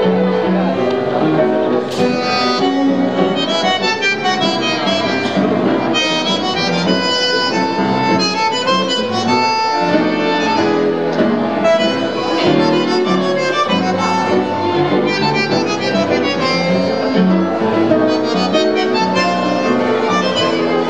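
Live tango music from a trio of bandoneón, violin and piano playing together, with the reedy bandoneón prominent.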